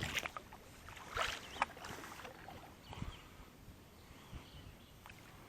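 Faint sounds of a small boat on the water: light knocks and soft water noise against the hull, a few louder taps scattered through.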